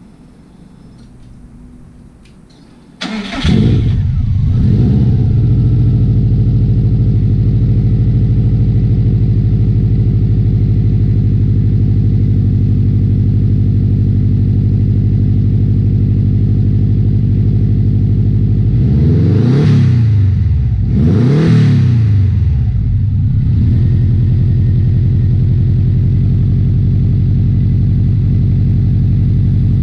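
Turbocharged car engine started through a newly built stainless-steel exhaust with a catalytic converter. It catches about three seconds in and settles into a steady idle. It is blipped twice, briefly, about two-thirds through, and then idles again.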